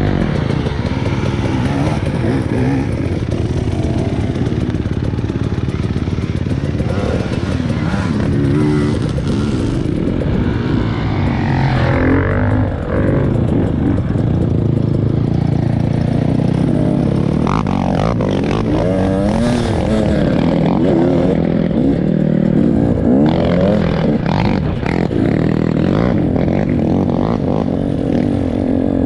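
A motor vehicle's engine running under a continuous low rumble, its pitch rising and falling several times as the revs change.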